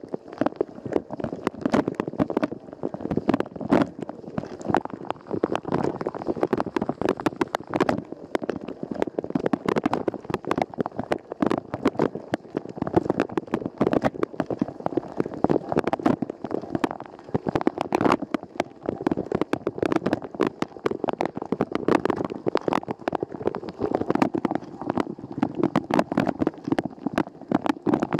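Rosenlew dishwasher washing, heard from inside the tub: water jets from the spray arm drumming and splashing against the dishes and walls in a dense, constant patter.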